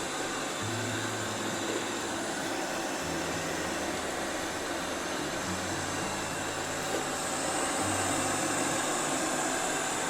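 iMartine C900 robot vacuum running with a steady whir. Beneath it is a low hum that shifts between a few pitches every second or two.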